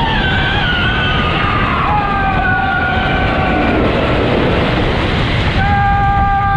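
The Beast wooden roller coaster train rumbling along its track, with riders screaming in long held cries over it: one at the start, another from about two seconds in, and a third near the end.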